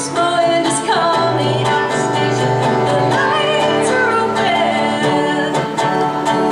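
Live solo performance: a woman singing a held, wavering melody over a strummed guitar. Her voice drops out about five seconds in, leaving the guitar playing on its own.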